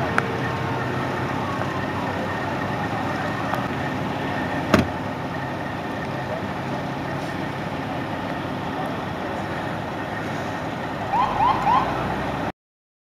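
Steady hum of idling truck engines, with a single sharp knock about five seconds in and a few quick rising chirps near the end.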